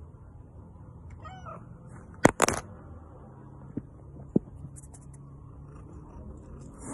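A kitten giving a short, faint meow about a second in, followed a little after two seconds by two sharp knocks, the loudest sounds here, and later by two soft clicks and light rustling.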